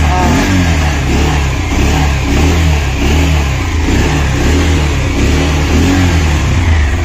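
Bajaj Pulsar motorcycle engine running after an engine rebuild, its pitch rising and falling over and over as the throttle is blipped, with a steady low hum beneath.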